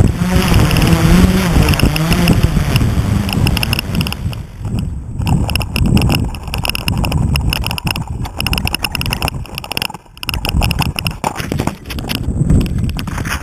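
Wind buffeting the microphone of the GoPro mounted on the quadcopter, with irregular knocks and rubbing as the drone is picked up, turned over and carried by hand. A wavering hum fades out in the first couple of seconds.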